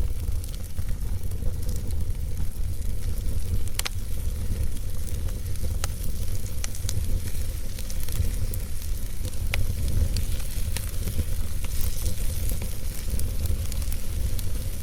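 Wood logs burning in a fireplace: a steady low rumble and hiss of flames with scattered sharp crackles and pops.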